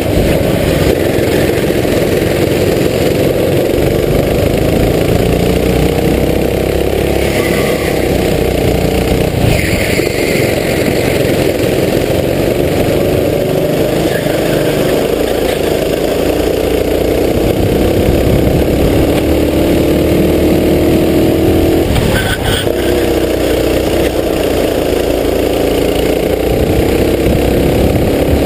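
Racing kart engine heard from on board at race pace, its note climbing for several seconds at a time under acceleration and dropping sharply when the throttle is lifted for corners, again and again.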